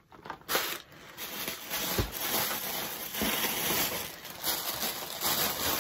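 Plastic wrapping crinkling and rustling as gift items are handled and rummaged through, with a couple of soft knocks.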